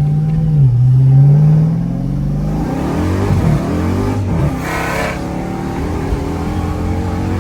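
Dodge Charger Hellcat's supercharged 6.2-litre HEMI V8, running through catless mid pipes, accelerating hard: the engine note climbs in pitch with a brief drop about half a second in, then eases off into a steady low drone from about five seconds in. It is loud, with a sound the owner takes for an exhaust leak.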